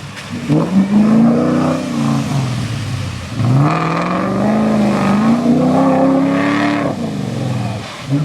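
Land Rover V8 engine revving hard twice: a quick rise in pitch that holds and then falls, then a longer, slowly climbing rev of about three seconds that drops back off near the end.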